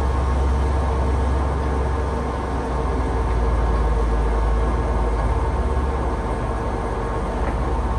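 Large 32-inch hollow spindle lathe running steadily in a slower spindle speed range, a low hum with a steady gear whine over it.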